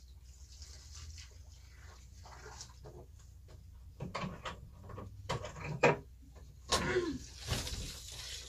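Faint scattered knocks and clatter, with a short animal call that falls in pitch about seven seconds in.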